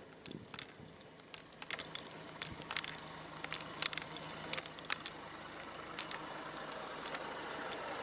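A vehicle engine idling steadily, with irregular sharp clicks and rattles over it.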